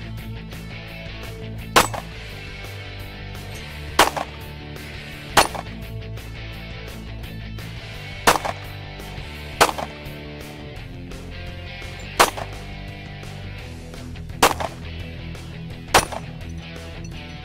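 Pistol shots, eight single shots fired one at a time, a second or two apart, each a sharp crack with a short echo.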